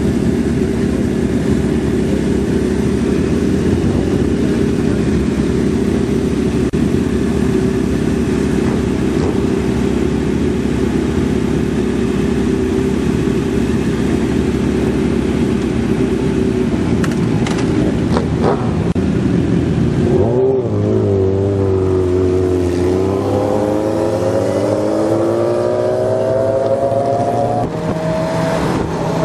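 Several motorcycle engines idling together in a steady, dense rumble. About two-thirds of the way through, this gives way to a single engine whose pitch dips and then climbs steadily as the vehicle picks up speed. It settles into a steady drone at speed near the end.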